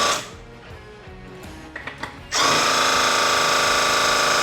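Drill spinning a 3D-printed Roots supercharger, its graphite-coated rotors wearing in, with a steady high whine. The whine stops just after the start, a few small clicks follow, and it starts again at full speed about two and a half seconds in.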